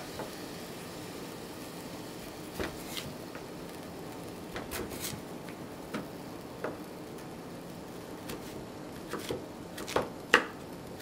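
A chef's knife cutting through hard turnip and knocking on a plastic cutting board: irregular single chops, the loudest two near the end.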